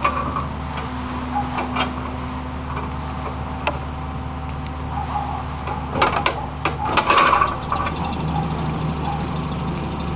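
Land Rover Series III engine idling steadily, with a quick cluster of metallic clanks about six to seven seconds in as the starting handle is drawn out of the front crank hole.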